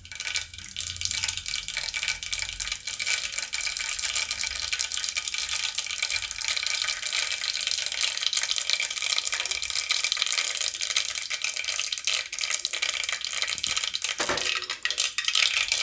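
Mustard seeds sizzling and crackling in hot oil in a pressure cooker, a dense steady crackle of many fine pops as the seeds splutter for a tempering. A brief thump near the end.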